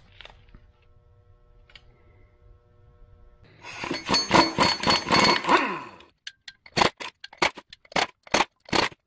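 Impact wrench hammering loudly for about two seconds as it breaks a flywheel bolt loose, then about eight short bursts as it runs the flywheel bolts out.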